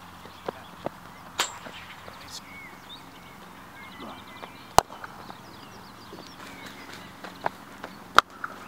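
Three sharp knocks a few seconds apart, a hard cricket ball bowled in the nets and struck by the batsman's bat, the middle one the loudest. Birds chirp faintly in the background.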